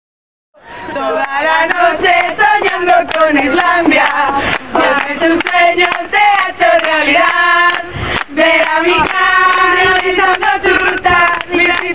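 A mixed group of men's and women's voices singing together, starting suddenly about half a second in after silence.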